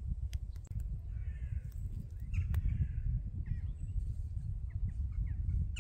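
Two harsh crow caws, about a second in and again about two and a half seconds in, with a few faint bird chirps later. Underneath is a constant low rumble with a few light clicks.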